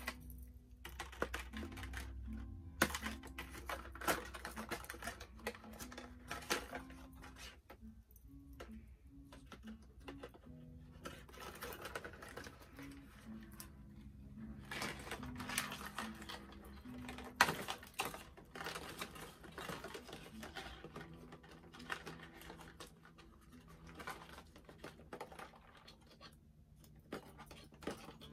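Cardboard toy packaging being handled and pulled apart: scattered rustles, taps and clicks, the sharpest about 3, 4 and 17 seconds in. Quiet background music plays under it.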